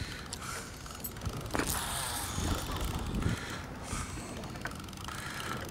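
Newell conventional fishing reel being cranked to retrieve a jig, its gears turning as the line winds in.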